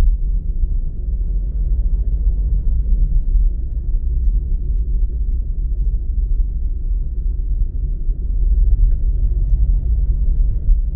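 Steady low rumble of a car on the move, engine and road noise with no high sounds.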